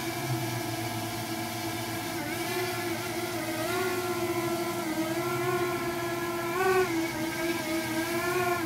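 DJI quadcopter drone's propellers whining steadily, the pitch wavering up and down as the motors change speed, with a brief rise in pitch and loudness about two-thirds of the way through.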